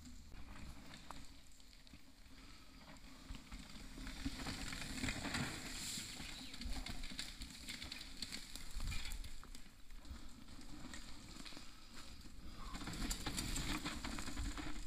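Mountain bike riding down a dirt forest trail: tyre noise on the dirt with a constant clatter of small rattles and knocks from the bike over bumps, getting louder from about four seconds in.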